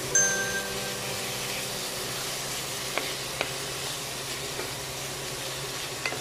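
Chicken pieces sizzling in oil with onion, garlic and ginger in a stainless steel pot as they are sautéed, stirred with a wooden spatula. Two light taps of the spatula against the pot come about three seconds in, half a second apart.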